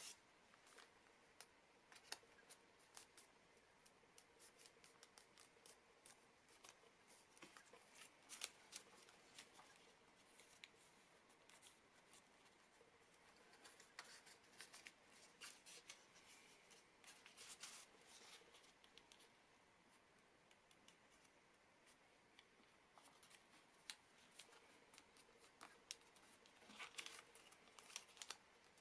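Faint crinkling and rustling of origami paper being folded and creased by hand, with irregular crisp crackles that come in clusters.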